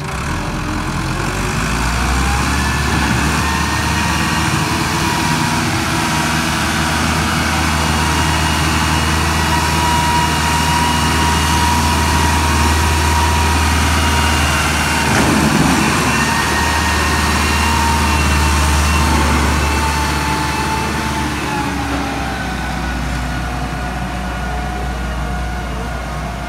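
Farm tractor's diesel engine running under load as it tows a low-bed trailer carrying a road roller: a steady low drone with a steady high whine above it. A single brief clunk about halfway through.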